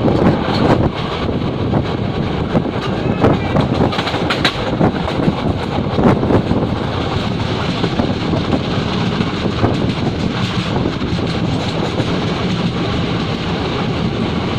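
Train running on the rails, a steady rumble with sharp wheel clacks over rail joints in the first half, then an even rumble.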